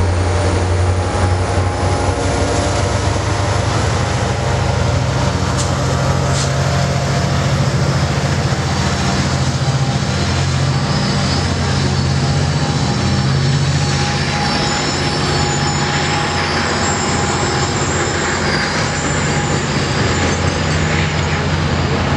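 Caltrain MP36PH-3C diesel locomotive and its train running out of the station: a steady low engine drone with rail noise that holds level throughout.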